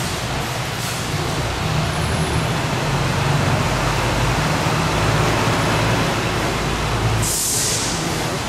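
Road-vehicle interior noise while driving on a wet street: a steady low engine hum under tyre and road noise. A short, sharp hiss comes about seven seconds in.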